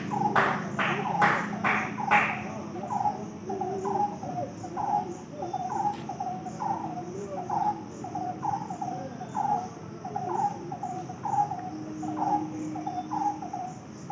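Insects chirping: a steady high pulsing trill, with a lower short chirp repeating about twice a second. A few sharp taps sound in quick succession in the first two seconds.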